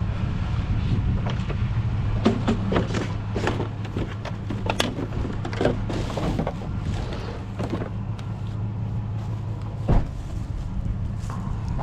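A vehicle engine running with a steady low hum, overlaid by a string of short clicks and rattles and one sharp knock about ten seconds in.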